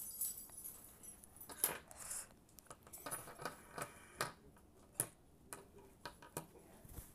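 A fidget spinner lying flat on a table being flicked by fingers to set it spinning: a string of irregular light clicks and taps, a few of them sharper.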